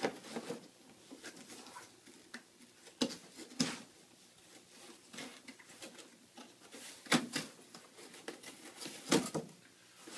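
Corrugated cardboard box being handled and folded into shape: scattered taps, knocks and scraping of the cardboard, with sharper knocks about three seconds in, about seven seconds in and near the end.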